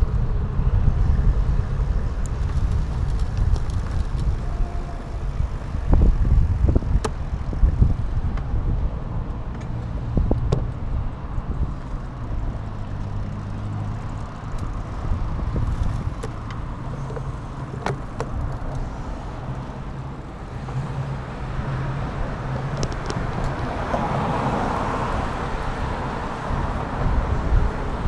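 Steady low rumble of wind and road noise on an action camera's microphone while riding, with a few sharp knocks along the way and a hissing swell near the end.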